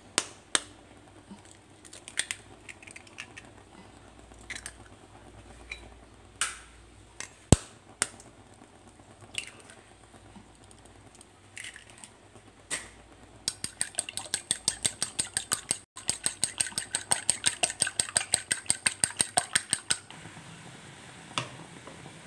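Eggs knocked one at a time against a glass bowl with a few sharp cracks, then beaten briskly: a utensil clicking against the glass at about six strokes a second for several seconds, about two-thirds of the way in.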